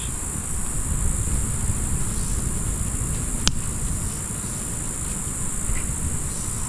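Steady high-pitched chorus of insects over a low steady rumble, with one sharp click about three and a half seconds in.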